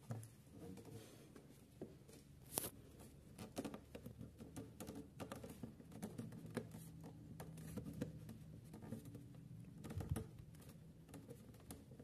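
Fingers handling the hard plastic casing of a toy washing machine, with irregular small clicks, taps and scrapes, one sharper click about two and a half seconds in and a dull knock about ten seconds in.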